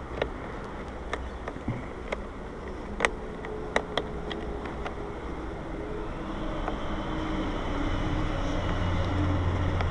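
Scattered sharp clicks and taps of the mirror's wiring and plastic parts being handled inside the van door, over a low steady hum that grows louder in the second half.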